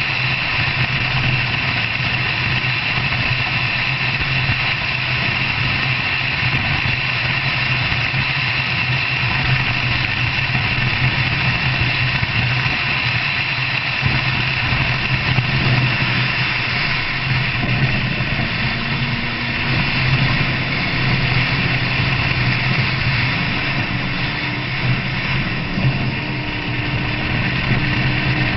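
Off-road vehicle on mud-terrain tyres driving fast along a dirt track: a steady engine hum under loud tyre, gravel and wind noise, heard from a hood-mounted camera. In the last ten seconds a faint engine note climbs in pitch in steps as it speeds up.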